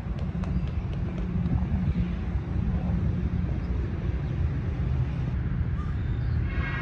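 Steady low outdoor rumble, with a brief high pitched sound right at the end.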